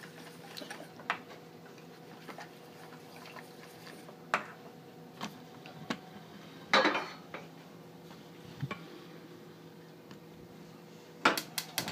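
Scattered clinks of a wire whisk against a stainless steel saucepan, with a louder clank about seven seconds in as the pot goes onto the gas stove's cast-iron grate, and a quick run of metal taps near the end. A faint steady hum runs underneath.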